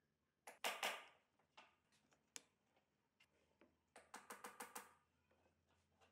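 Thin wooden strips knocking and clattering against each other and the tabletop as they are handled: a few sharp knocks about half a second in, then a quick run of about eight light clacks around four seconds in.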